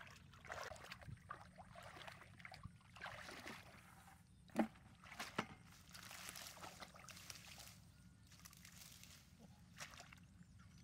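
Hands sloshing and groping through shallow muddy water in short bursts of splashing, with a sharp knock about halfway through and a lighter one shortly after.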